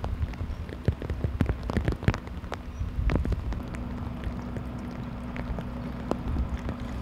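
Steady rain, with scattered drops tapping close by over a low rumble.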